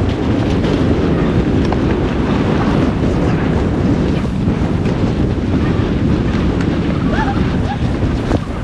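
Loud, steady wind noise buffeting the camera's microphone, with a few faint short squeaks near the end.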